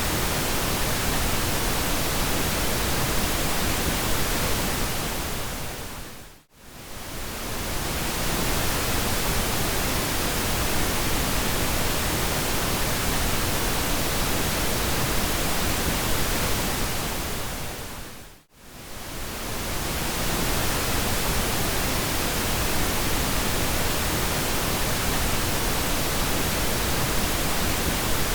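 Steady synthetic pink noise, an even hiss without tones, which fades briefly to silence and back twice, about six seconds in and again about twelve seconds later.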